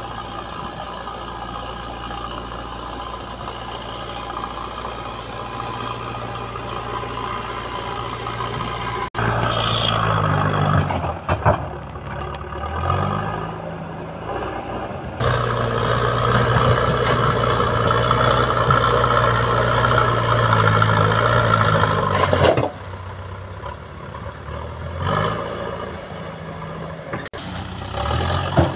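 JCB backhoe loader's diesel engine running, steady at first, then louder with its pitch rising and falling as the loader works its front bucket against rocks and snow, settling back to a quieter run about three quarters through.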